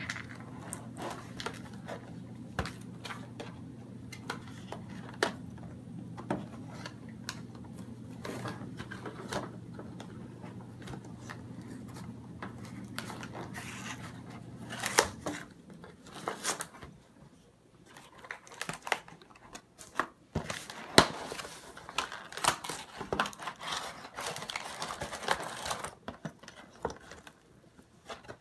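Cardboard toy box and plastic packaging being opened and handled: crinkling, tearing and rustling with scattered clicks and taps as the plastic pieces of a toy cleaning set are worked loose. A low steady hum runs underneath and cuts off about halfway.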